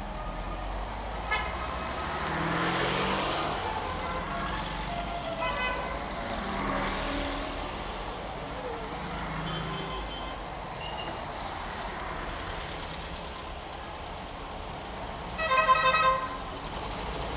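Classic cars, among them Volkswagen Beetles, driving slowly past one after another, their engines swelling as each car goes by. A car horn toots loudly near the end.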